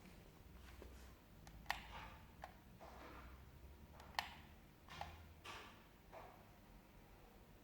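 A few faint, sharp clicks and knocks with soft rustling between them, against a quiet room.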